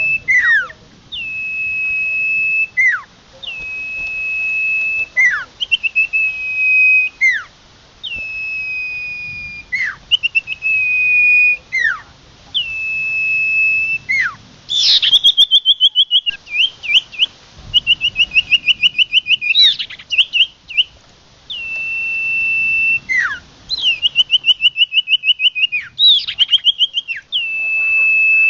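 Common iora song used as a bird lure: a quick falling note followed by a long, steady high whistle, repeated about every two seconds. Twice it breaks into a fast trilled series.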